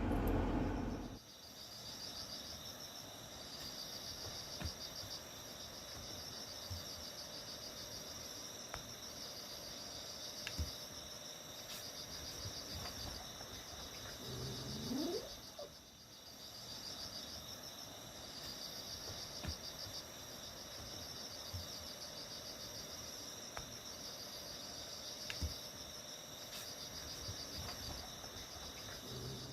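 Insects trilling in a steady high-pitched pulsing chorus that pauses briefly every few seconds. A louder rumbling noise dies away in the first second, and a short rising call sounds twice, about halfway and at the end.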